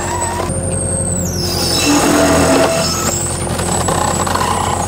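Engine-driven hydraulic log splitter running steadily as its wedge pushes through a coconut palm log, with a louder, strained stretch about two seconds in.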